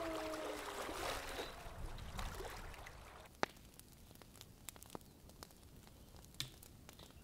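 Faint outdoor background: a soft rushing noise that fades away over the first three seconds, then near quiet with a few light clicks.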